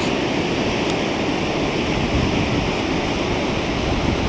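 Gullfoss, the two-stage waterfall on the Hvítá river: a loud, steady rush of falling water.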